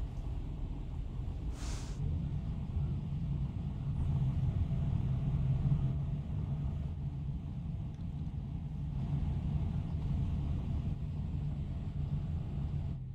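Steady low drone of the ferry's engines and hull, heard inside a small cabin, with a short hiss about two seconds in.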